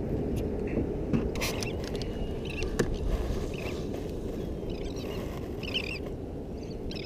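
Steady low rush of wind and water against a small drifting boat, with a couple of sharp knocks in the first three seconds. Faint high-pitched bird chirps come in from about two and a half seconds on.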